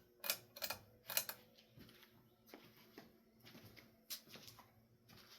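2003 Hampton Bay Quick Connect ceiling fan, just switched to medium speed, with its motor giving a faint steady hum. A quick run of light metallic clicks in the first second or so, from the pull chain rattling after the speed change, then a few scattered faint ticks.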